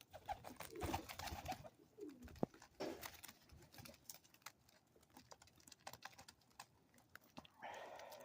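Faint, low bird calls, a few short ones in the first three seconds, with scattered light clicks.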